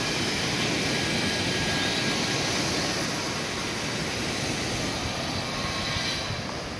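Sea waves breaking and washing up a sandy shore: a steady rushing hiss that eases slightly near the end.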